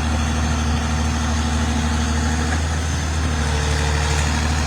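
Heavy engine of the gunite spraying equipment running steadily at a constant speed, a loud, even drone with no change in pitch.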